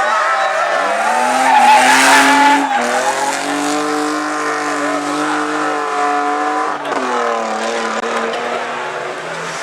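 Race car engine under hard acceleration up a hillclimb: the engine note dips, then climbs, with a loud rushing burst about two seconds in. It breaks sharply at two gear changes, about three and seven seconds in, and climbs again after each.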